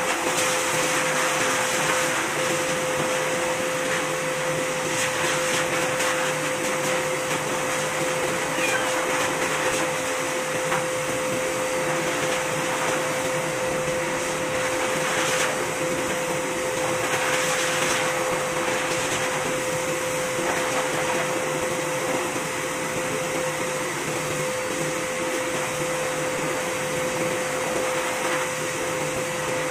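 Electric pet-grooming machine running steadily, air rushing through its corrugated hose as the hose end is worked through a cat's coat to pull out loose undercoat, with a steady mid-pitched motor whine.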